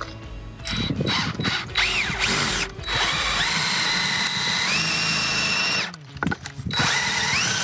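Cordless drill boring through a metal L bracket with a twist bit: a few short starts at first, then a steady whine that steps up in pitch a little before five seconds in, stopping around six seconds and spinning up again near the end. The bracket is being drilled out so a U-bolt will fit through it.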